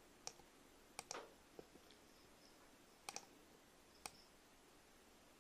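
Faint clicks of a computer mouse and keyboard: about six sharp, separate clicks, some in quick pairs, scattered through a quiet background.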